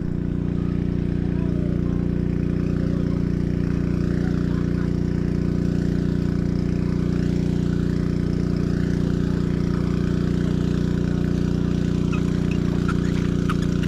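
An engine idling steadily, one unchanging low drone.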